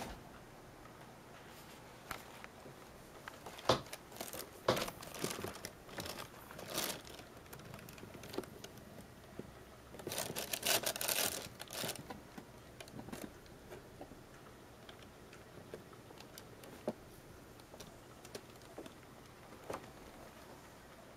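Plastic bags and cardboard crinkling and rustling as a cat pushes in among them under a shelf, in irregular bursts with the loudest stretch about ten to twelve seconds in. A few light knocks and clicks come in between.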